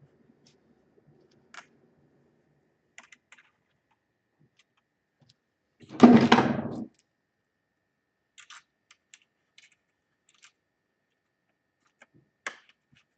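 Scattered small clicks and taps of plastic laptop parts and cable connectors being handled and pressed into place, with one much louder sound lasting about a second about six seconds in.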